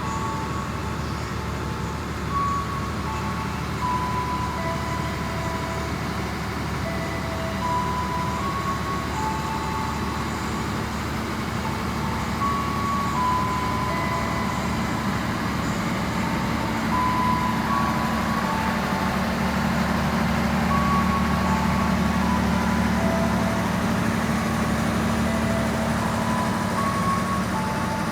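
Diesel engine of a Lokal Bandung Raya local train running steadily, growing louder about two-thirds of the way through. Over it, a slow tune of plain single high tones at changing pitches.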